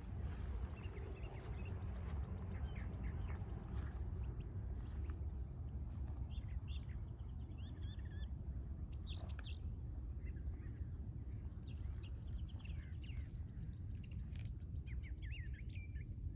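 Small birds chirping and calling now and then, short scattered chirps over a steady low rumble of outdoor background noise.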